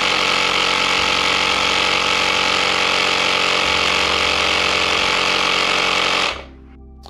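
Cordless handheld electric tire inflator running steadily as it pumps air into a tire, then cutting off suddenly about six seconds in.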